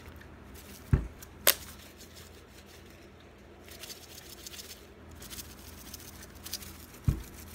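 Handling noise of a rubber balloon being stretched over the neck of a plastic bottle full of cornmeal: rubbing and crinkling, with a dull thump about a second in and another near the end, and a sharp click in between.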